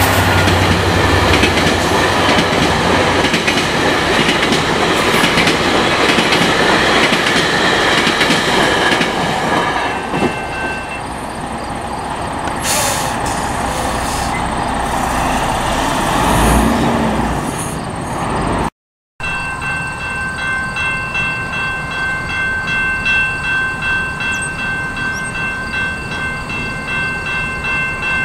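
GO Transit bi-level commuter train passing over a level crossing: a loud rumble of the cars on the rails that eases after about ten seconds. After a cut about two-thirds of the way in, the crossing bell rings steadily at the lowered gates.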